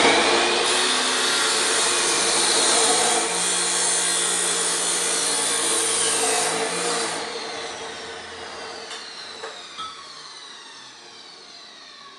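A power tool cutting steel bar stock: the motor whines up to speed, cuts steadily for about seven seconds, then is released and winds down with a falling whine.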